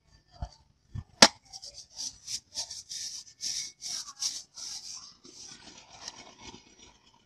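Hollow plastic bottle scraping against a knife point as it is turned and handled. A sharp click about a second in, then a run of short scratchy strokes, two or three a second, that fade to softer rubbing.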